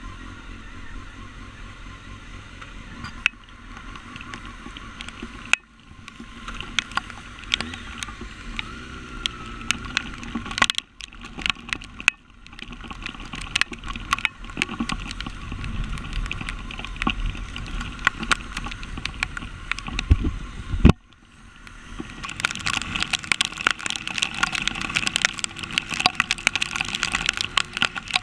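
Motorcycle on the move, heard through a GoPro's microphone: steady engine and wind noise peppered with many sharp ticks and taps. The sound cuts out briefly four times, and the noise grows denser and louder about three quarters of the way through.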